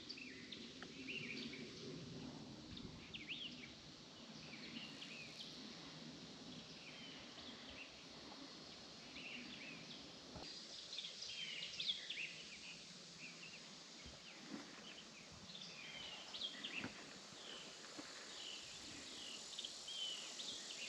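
Faint outdoor ambience with small birds chirping and calling throughout, many short high chirps, and a few faint clicks.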